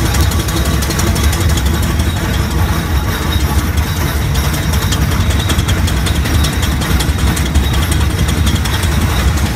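Garrett steam traction engine working hard on an uphill climb, a steady loud running beat of the engine with a deep low rumble, heard from close behind it.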